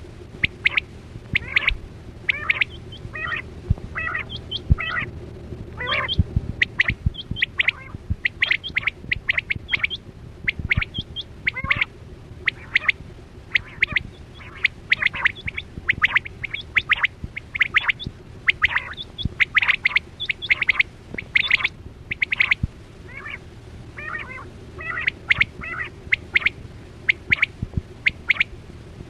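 Quail (batera) calling: many short, sharp call notes repeated in quick runs, over a steady low hum.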